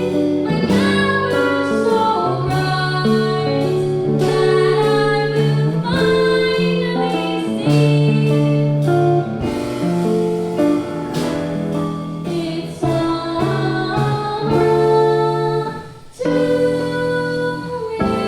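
Music with singing over guitar.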